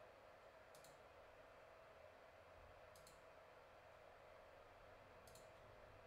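Three faint computer mouse clicks, each a quick press-and-release, roughly two seconds apart, over near-silent room tone.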